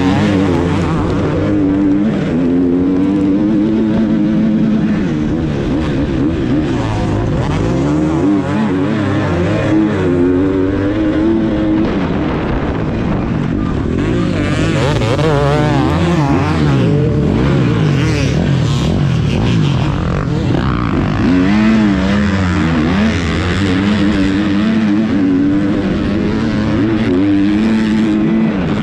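On-board sound of a motocross bike's engine, revving up and down again and again as the rider accelerates, shifts and backs off through the corners.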